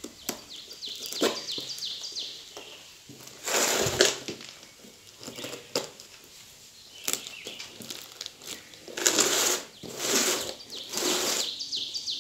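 A small knife slicing and tearing the plastic packing tape on a cardboard box, in several rasping strokes: one around four seconds in and three close together near the end. A bird chirps in quick runs of falling notes in the background.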